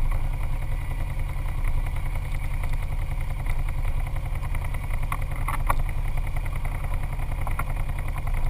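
ATV engine idling steadily, a low, even running note with no revving.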